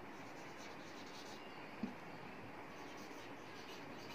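Marker pen writing on a whiteboard: faint scratchy strokes over a quiet room, with one short low blip about two seconds in.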